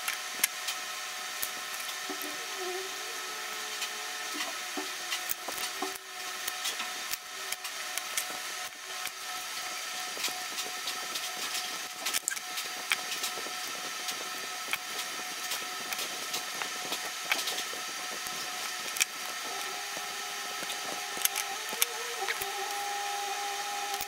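Small clicks, taps and rubbing from hands working on an electrical power cable and its connector, as bare wires are stripped, twisted and fitted. Under them runs a steady background with a few held tones that shift near the end.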